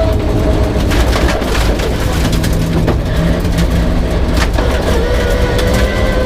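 Peugeot 306 rear-wheel-drive rally car running at speed, a loud steady drone of engine and drivetrain with held whining tones, one of which dips in pitch about five seconds in. Occasional short knocks come through over the drone.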